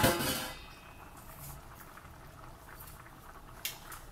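Rice with corn boiling in a wide aluminium pan, the broth bubbling with faint scattered pops as it cooks down. A brief louder sound right at the start.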